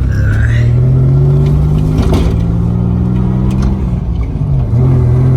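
Nissan Z31's turbocharged VG V6 pulling in second gear, its engine note climbing slowly with a brief dip about four and a half seconds in. The engine is chugging under load: it runs too rich and won't build boost.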